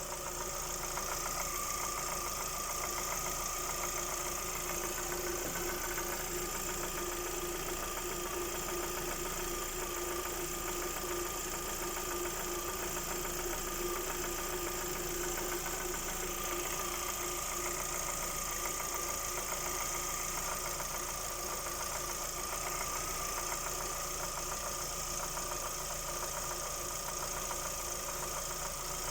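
Lada Vesta 1.6 engine running at a steady speed with a rapid, regular knock that the owner takes for the camshaft knocking, on an almost new engine at 1,400 km.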